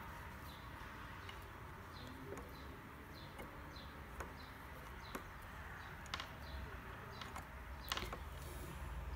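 Faint bird chirping: short, high chirps sliding downward, repeating about twice a second over low room hiss, with a few faint clicks.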